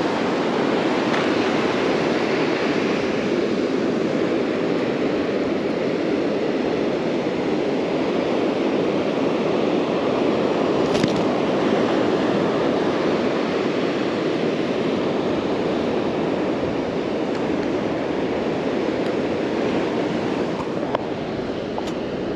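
Ocean surf washing onto a sandy beach: a steady, unbroken rush. There is one faint click about eleven seconds in.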